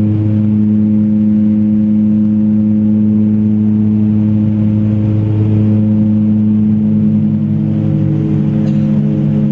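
Propeller and engine drone of a small twin-turboprop commuter airliner heard inside the cabin: a loud, steady hum of several stacked tones over rushing noise, with the tones shifting slightly near the end.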